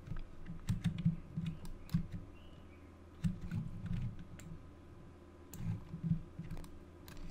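Computer keyboard and mouse in use: irregular clicks and taps in three short clusters, with dull low knocks under them.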